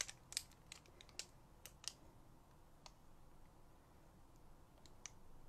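Near silence broken by faint clicks and taps of small craft items being handled on a work surface, several in the first two seconds and a few sparse ones after.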